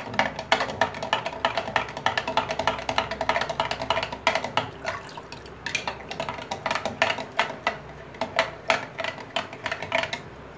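Metal spoon clinking rapidly against the inside of a glass jug while stirring water into raw-mango sharbat, about four or five clinks a second, with a brief pause about halfway through and stopping just before the end.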